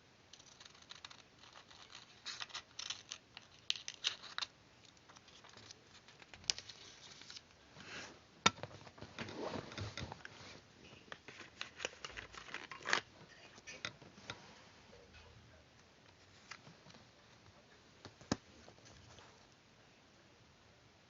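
Paper being handled and worked by hand: scattered rustling and crinkling with small sharp clicks, and a longer rustle about halfway through.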